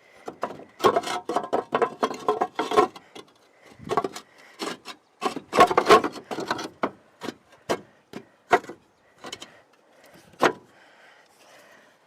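Roof tile being handled and shifted into place: irregular knocks, clatters and scraping in clusters, with a sharp knock about ten seconds in, then only faint noise near the end.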